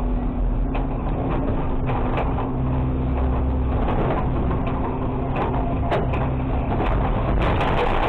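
Garbage truck's diesel engine running under a steady hum while the automated arm tips a cart into the hopper; near the end, trash and a board drop in with a clatter of knocks and thumps.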